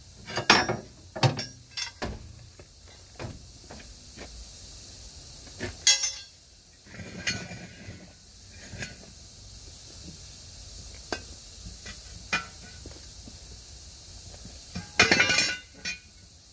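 Steel tire irons clinking and scraping against a 19.5-inch truck tire and its rim as the bead is pried by hand: scattered sharp metal clinks, with a loud one about six seconds in and a louder cluster near the end.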